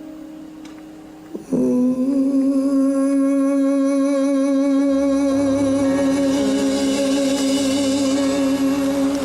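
Live ballad ending: after a fading chord, a male singer holds one long note with vibrato for about eight seconds over the band, and a low bass joins about halfway through.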